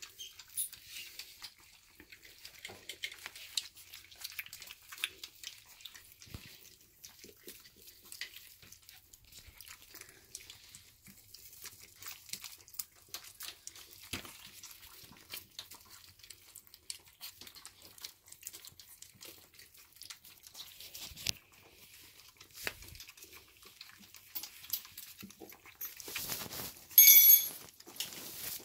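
Four-week-old corgi puppies eating softened puppy kibble mush from a shared bowl: continuous wet lapping, smacking and chewing made of many small clicks. Near the end a brief, louder high-pitched squeal.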